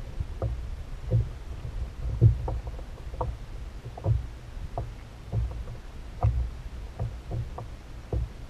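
Small waves slapping and knocking against a fishing kayak's hull: irregular low thuds with short knocks, about one or two a second.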